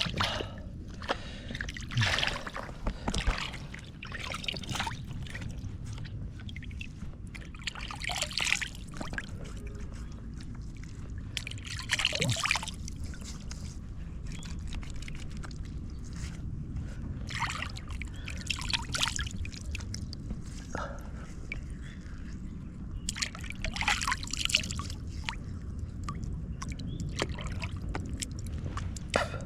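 Water splashing and trickling in irregular bursts, over a steady low rumble.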